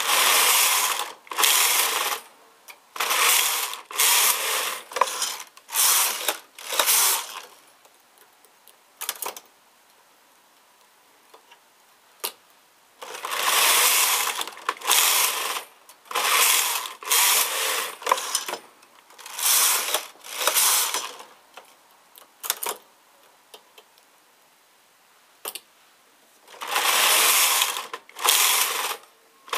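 Knitting machine carriage pushed back and forth across the metal needle bed, each pass a burst of noise about a second long. The passes come in three runs, with a few single clicks in the pauses between them.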